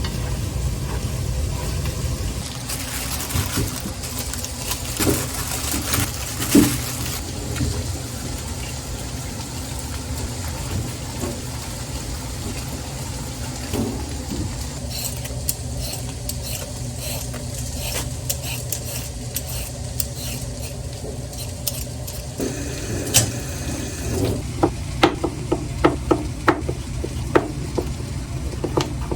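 Food frying in a pan while it is stirred, the utensil scraping and knocking against the pan over a steady low rumble. The knocks come thick and fast near the end.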